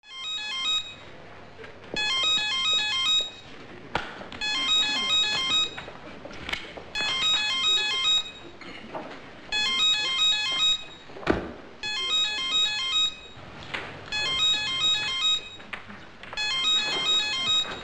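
Motorola C212 mobile phone ringing: a short beeping ringtone melody that repeats about every two and a half seconds, eight times in all. A few knocks and some rustling fall between the rings, the loudest knock about eleven seconds in.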